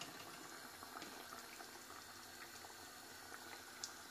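Fish curry sauce simmering in a metal pan on a gas stove: faint, steady bubbling with scattered small pops and one sharper tick near the end.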